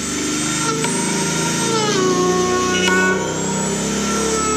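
Dremel rotary tool running against a plastic air filter housing as it cuts, with a high whine that dips in pitch under load about two seconds in and climbs back near the end.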